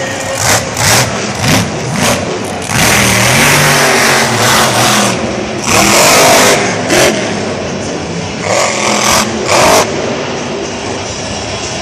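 Monster truck's supercharged V8 revving hard, with short sharp throttle bursts in the first couple of seconds and again near the end, and longer full-throttle runs in the middle with the engine note rising and falling.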